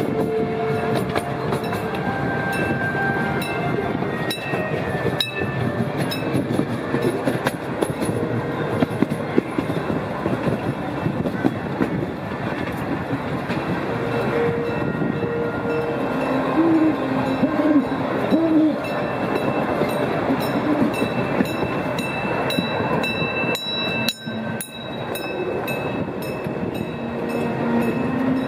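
Europa-Park Panoramabahn park train running along its track, heard from an open carriage: a steady rumble of wheels and running gear, with rhythmic clicking over the rails becoming more distinct in the second half.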